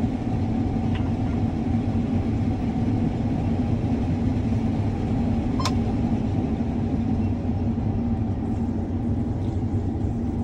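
Combine harvester running, a steady low engine drone, with a single sharp click about five and a half seconds in.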